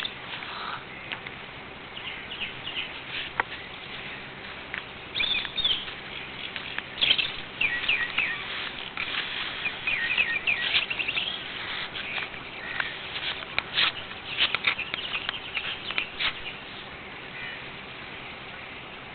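Small birds chirping in short, irregular calls, busiest through the middle, over a steady low background noise.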